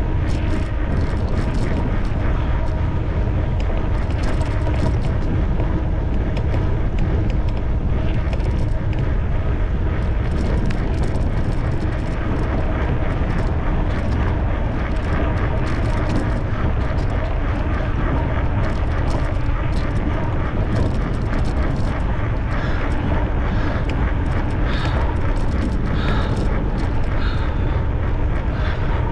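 Wind rushing over the microphone together with the running noise of an electric bicycle riding at speed, a loud, steady low rumble.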